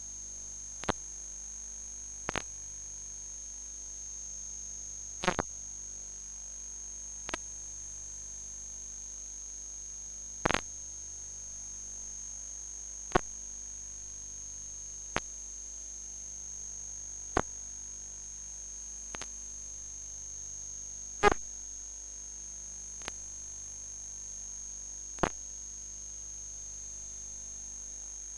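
Steady hiss with a constant high-pitched whine, broken by single sharp clicks about every two to three seconds.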